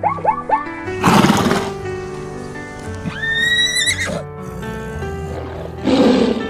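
Animal calls over steady background music: a short noisy burst about a second in, a long call around three seconds in that rises, holds and wavers at its end, and another short noisy burst near the end.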